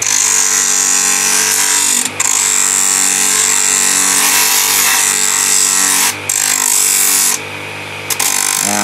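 Bench grinder's electric motor running steadily with a loud abrasive hiss as the wooden handle scales of a full-tang kukri are ground down to the blade's shape. Near the end the wood comes off the disc for under a second, leaving only the motor's hum.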